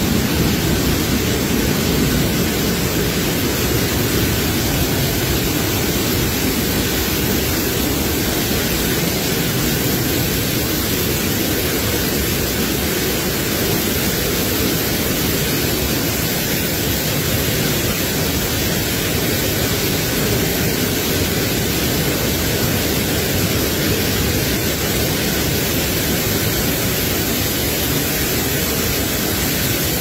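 Large waterfall rushing steadily: a dense, even noise of falling water and spray.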